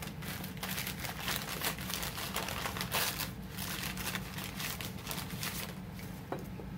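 Crinkling and rustling of wrapping or packaging being handled, an irregular run of crackles that eases off near the end.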